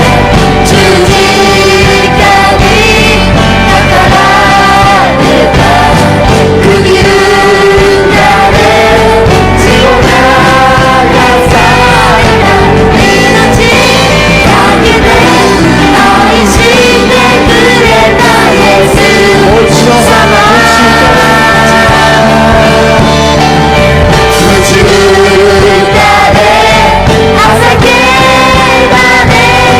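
Christian praise song playing loudly and steadily: voices singing over an instrumental accompaniment.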